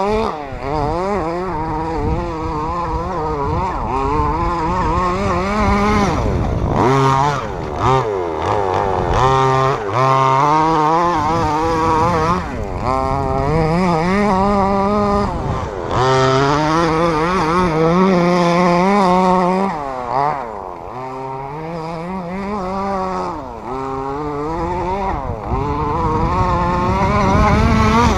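Redcat Rampage XB RC buggy's small two-stroke gas engine, fitted with its stock pipe, revving up and falling back again and again as the buggy is driven hard. It is briefly quieter for a few seconds past the middle, then revs up again.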